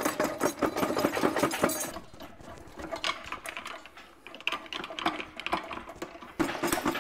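Hand ratchet clicking in quick runs as bolts holding the gearbox to the engine are worked loose: loud for the first couple of seconds, fainter in the middle, and loud again near the end.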